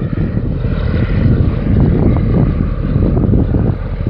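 Wind buffeting the microphone: a heavy, irregular low rumble that flutters and gusts.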